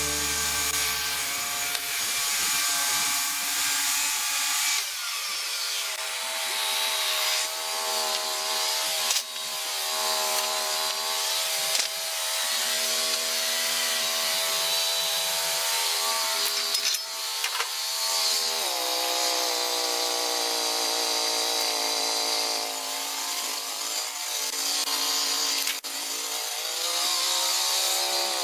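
Band sawmill running and cutting through a log: a steady engine note under the constant hiss of the blade in the wood, with the engine pitch sagging slightly about two-thirds of the way through.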